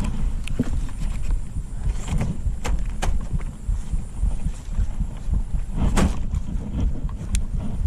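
Wind buffeting the microphone, an uneven low rumble, with a few light clicks scattered through it.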